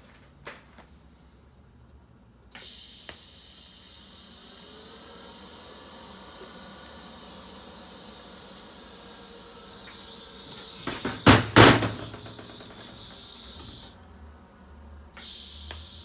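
TIG welding arc on a cast-iron manifold joined to a stainless V-band: a steady hiss that starts abruptly a couple of seconds in and runs for about eleven seconds, with two loud sharp knocks near its end. It stops briefly, then the arc starts again near the end.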